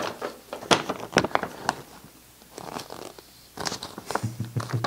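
Crinkling and rustling of glossy card as the Paqui One Chip Challenge 'I Crushed' banners are unfolded and handled, a few sharp crackles, then more crackling near the end.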